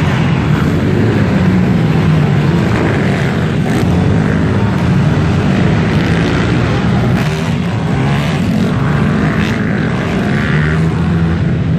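Several pit bikes racing, their small four-stroke engines revving up and down continuously and overlapping as the riders accelerate and jump. The sound is loud and fills an indoor hall.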